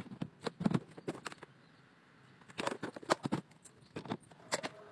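Light, irregular clicks and taps of kitchen utensils against dishes, in two short runs with a quieter pause between.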